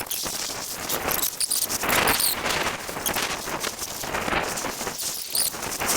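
Fast-forwarded audio of a snowboard run: wind and board-on-snow noise sped up into a dense, rapid chattering hiss.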